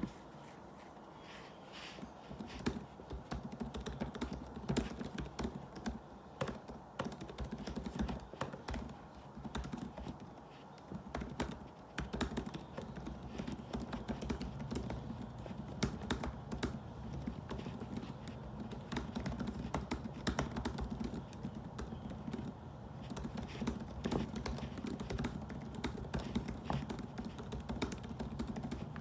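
Fast, continuous typing on a laptop keyboard: a dense, uneven stream of key clicks with the odd louder keystroke, starting about two seconds in.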